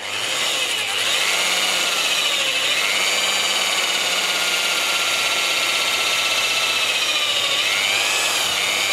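Electric drill running steadily as a large bit countersinks a screw hole in melamine-faced chipboard. The motor note sags and recovers a couple of times as the bit bites.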